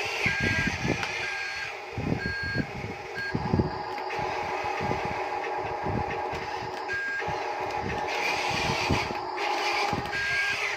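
Electronic reversing beeper of an RC toy construction vehicle: short evenly pitched beeps, about five quick ones at first and then single beeps spaced a few seconds apart. Under them run a steady mechanical whir, a rising whine a few times, and scattered low knocks.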